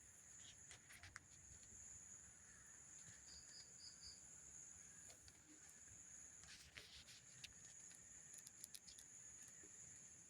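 Faint night insects, crickets, keeping up a steady high-pitched trill, with a quick run of four short chirps a few seconds in and a few soft scattered clicks and crackles.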